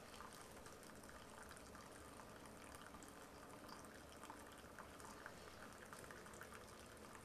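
Keurig K55 single-serve brewer dispensing a thin stream of brewed coffee into a ceramic mug: a faint, steady trickle with small ticking spatters.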